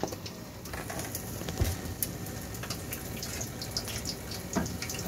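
Boondi frying in hot oil: a steady sizzle with scattered small crackles and pops.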